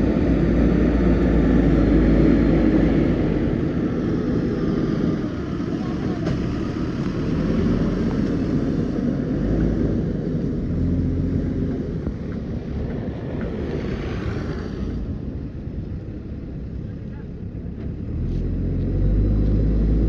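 JCB 3DX backhoe loader's diesel engine running while working, its loudness rising and falling with the load and swelling again near the end.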